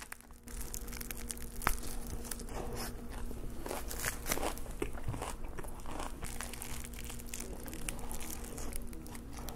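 Crunchy bites and chewing into a lettuce-filled duck tortilla wrap, with its paper wrapper crinkling; many small crackles, one sharper crunch about a second and a half in.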